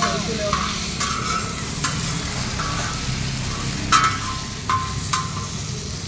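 Fish frying on a hot tawa, a steady sizzle with a few sharp clicks, the loudest about four seconds in.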